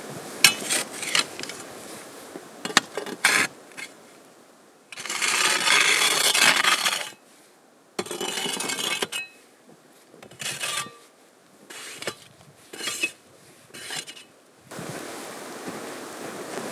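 Clinks, knocks and scrapes of small objects being handled, with a louder rushing noise lasting about two seconds about five seconds in. Wind noise at the start and the end.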